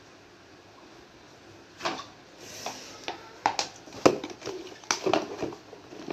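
Close handling noises: a plastic packet rustles about two seconds in, then an irregular run of sharp knocks and clicks right at the microphone, loudest about four and five seconds in.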